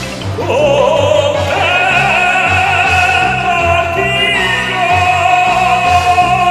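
Music: a long operatic-style sung note with vibrato, sliding up at the start and then held, over an accompaniment with a pulsing bass.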